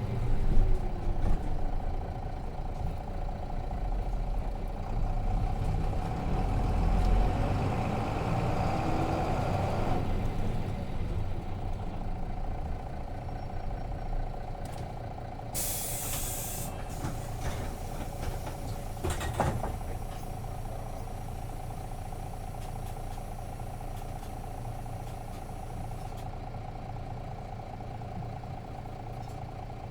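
Cabin sound of a Nissan Diesel RM bus with its FE6 six-cylinder diesel engine. The engine runs louder for about ten seconds, then eases off. A short, loud air-brake hiss comes about halfway through, followed by a brief clatter and a steady idle.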